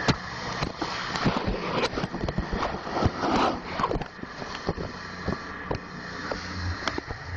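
Handling noise of a hand-held phone: irregular rubbing, clicks and knocks as it is moved close against surfaces, over a faint steady hum.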